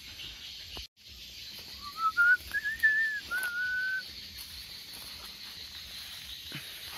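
A single clear whistle of a few notes, starting about two seconds in and lasting about two seconds: it climbs in steps, holds, then drops a little and holds again. A steady high hiss runs underneath.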